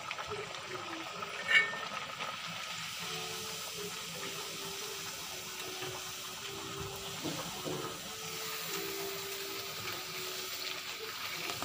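A puri deep-frying in hot oil in a kadhai, with a steady sizzle of bubbling oil. There is a sharp metal clink about a second and a half in.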